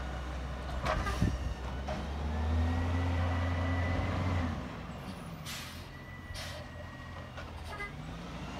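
Labrie garbage truck's diesel engine running, rising in pitch and level for about two and a half seconds and then dropping back to a low idle. It is marked by a couple of short knocks early on and two short air hisses a second apart.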